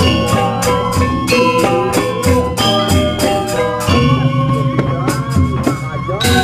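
Music with a steady beat: sustained pitched notes over a bass line and sharp jingling percussion strokes several times a second.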